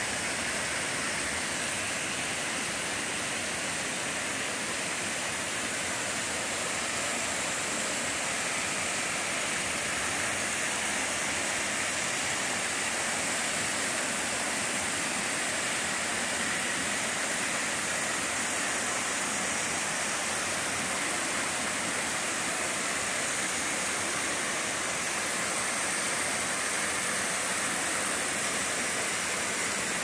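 Cascading water rushing and splashing over rocks and concrete steps, a constant, unchanging rush.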